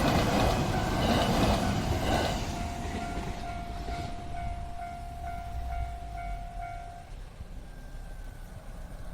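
Container freight train passing on the Sanyo Main Line, its rumble loudest for the first two seconds and then fading. A level-crossing alarm rings in pulses about twice a second and stops about seven seconds in.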